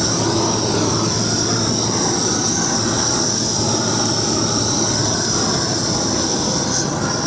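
Propane weed torch burning with a steady, loud hiss as its flame is played over weeds.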